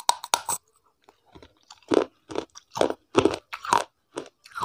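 Biting into and chewing a brittle smoked clay cup: a few sharp crunching bites at the start, then, after a short pause, crunchy chewing about twice a second.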